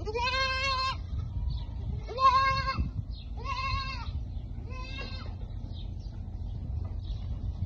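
Young goats bleating, four separate calls in the first five seconds, the first the longest at about a second, over a low steady rumble.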